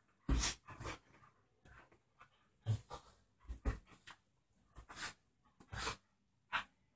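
Two Bearded Collies play-fighting: a string of short, sharp huffs and scuffling noises, about a dozen, irregularly spaced.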